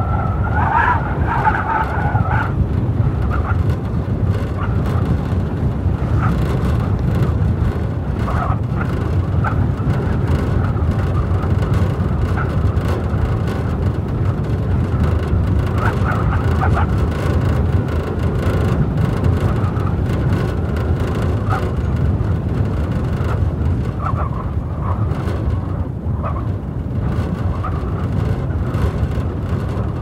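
Blizzard wind blowing hard and steadily with a deep rumble, over it a whistling howl that wavers in pitch, strongest in the first couple of seconds and coming back in short whines later.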